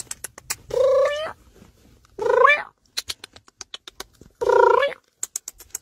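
A domestic cat meowing three times, each call about half a second long, with runs of quick sharp clicks between the calls.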